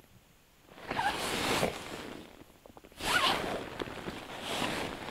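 Rustling noise in bursts, one about a second in and a sharper one at three seconds, with lighter rustling after.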